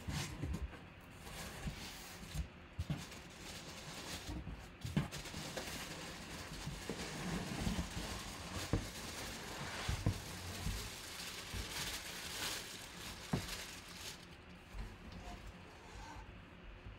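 Cardboard shipping box being handled and opened by hand: flaps pulled back and cardboard scraping and rubbing, with scattered knocks and clicks.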